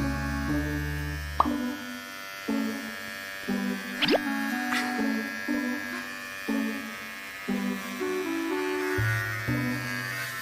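Electric pet hair clipper buzzing steadily as it trims the fur on a cat's paw pads, under background music that moves in short stepping notes. A quick rising glide sounds about four seconds in.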